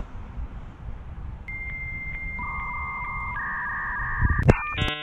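Dial-up modem handshake sound effect. After a moment of low outdoor rumble comes a steady high answer tone that is briefly interrupted at regular intervals, then lower steady tones alongside it. About four and a half seconds in, these turn into quickly changing stacked electronic tones.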